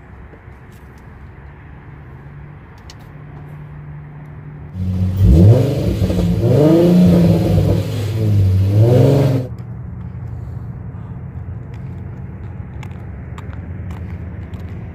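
An Infiniti car engine revved hard about four times in quick succession, its pitch climbing and falling with each rev. It starts about five seconds in and stops suddenly about four seconds later, over a steady low hum.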